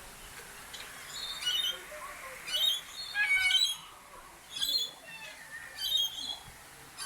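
Birds squawking in a string of short, harsh calls, about one a second, starting about a second in.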